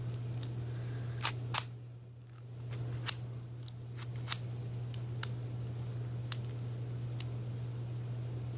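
Scattered sharp clicks, about eight in all, from a combination cable bike lock being handled as its cable end is put back into the lock body, over a steady low hum.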